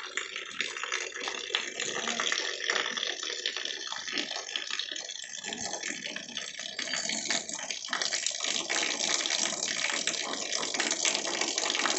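Rainwater runoff pouring in a thin stream from a roof edge and splashing onto a metal roofing sheet, with rain pattering on the sheet and ground around it; a steady dense spatter that goes on without a break.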